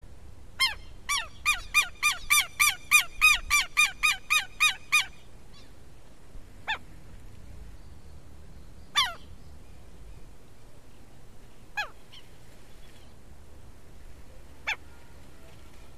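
Southern lapwing calling: a rapid run of about fourteen loud, falling notes, roughly three a second, then four single calls spaced a few seconds apart.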